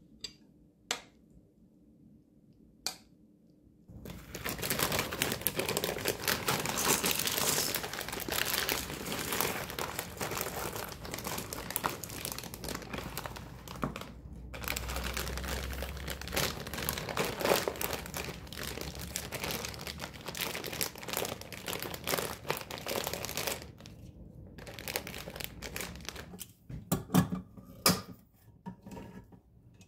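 Plastic bag of dry pasta crinkling and rustling, a dense crackle lasting most of the stretch, as the macaroni is handled and poured into a bowl. Near the end come a few loud knocks as a hand-held can opener is worked on a can.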